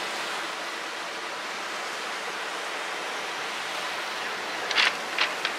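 Steady rushing noise of ocean surf, even and unbroken, with a few brief sharp sounds near the end.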